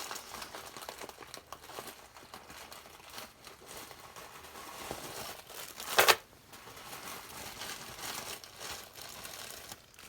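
Plastic bead bags crinkling as packs of bead strands are handled and sorted, with one short, loud crackle about six seconds in.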